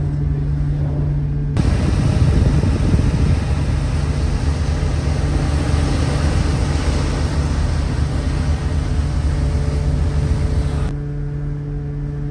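Steady low drone of the ship's machinery, with a loud rush of strong wind buffeting the microphone that starts abruptly about a second and a half in and cuts off just as suddenly near the end.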